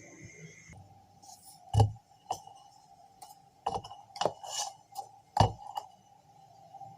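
Hard objects clinking and knocking as they are handled, a string of sharp clicks with two heavier thumps, one about two seconds in and one near five and a half seconds. A faint steady hum sets in about a second in.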